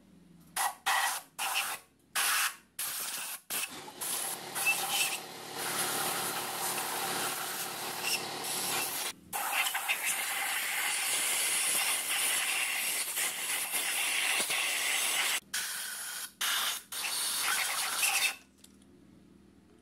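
Compressed-air blow gun blowing off a cast-iron cylinder head: a string of short hissing blasts, then a long steady hiss with one brief break, and a few more short blasts near the end before it stops.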